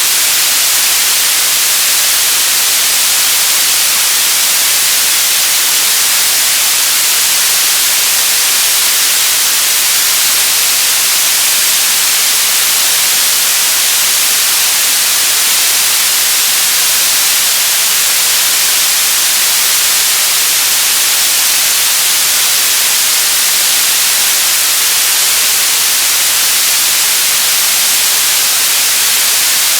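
Television static: a loud, steady hiss of white noise, bright and high-pitched, unchanging throughout.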